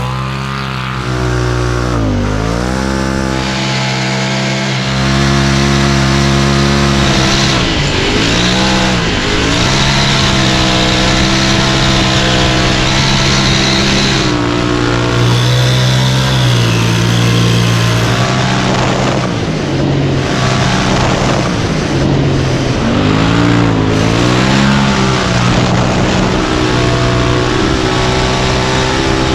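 Polaris RZR XP Turbo side-by-side with a GGB stainless steel turbo-back exhaust, run hard at wide open throttle, its exhaust note deep and tuned. The engine pitch drops and climbs back several times as the throttle is eased and reapplied, and holds steady and high between.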